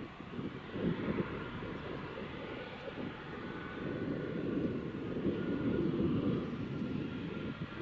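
Embraer E190's GE CF34-10E turbofan engines running at low taxi power, a steady low noise with a faint high whine over it.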